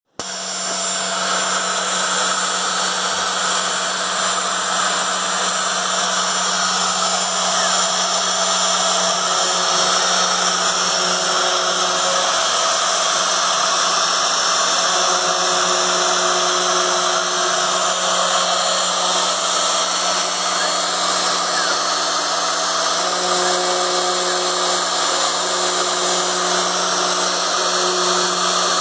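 Homemade metal CNC machine running: a steady motor whine from its spindle, with fainter tones that come and go as it works.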